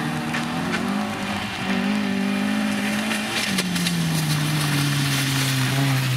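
Fiat Seicento rally car's engine revving hard. The pitch climbs and drops back twice, about a second in and again past the midpoint, then falls slowly in one long note as the car comes close and passes.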